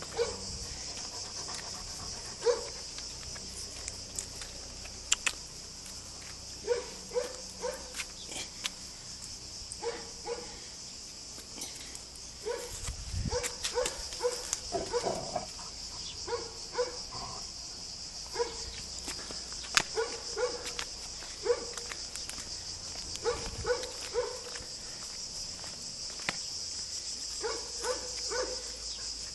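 Dogs, likely the Weimaraners, barking and yelping in short clusters of two to four, on and off.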